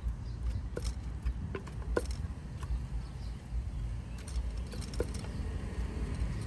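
Light, irregular clinks and taps of cooking utensils, some with a short ring and the sharpest about two seconds in, over a steady low rumble of street traffic.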